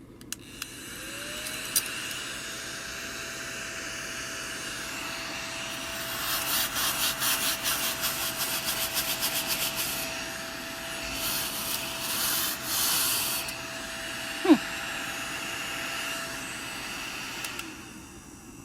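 Battery-operated mini desk vacuum switched on, its small motor spinning up to a steady whine and running, with two stretches of rapid rattling partway through; it is switched off near the end.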